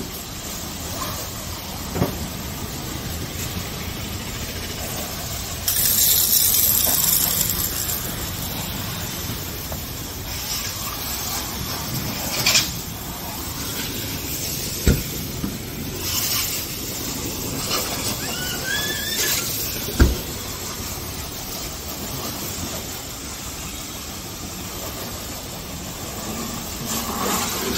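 High-pressure water jet spraying a car and the wet floor: a steady hiss of spray that grows louder for a couple of seconds about six seconds in. A few sharp knocks and brief squeaks sound over it.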